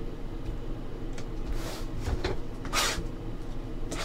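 Trading cards being handled on a table, sliding and rubbing against each other and the tabletop: two brief swishes, a little before two seconds in and near three seconds, and a few faint clicks, over a steady low room hum.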